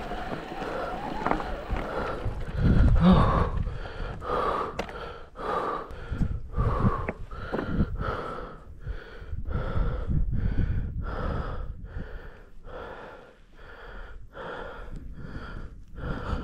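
A person panting hard from exertion, quick rhythmic breaths coming just under two a second, over a low rumble of wind or movement.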